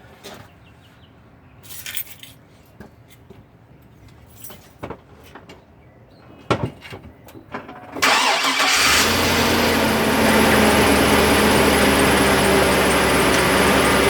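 A few light clicks and knocks, then about eight seconds in the truck's engine cranks, catches and settles into a steady idle.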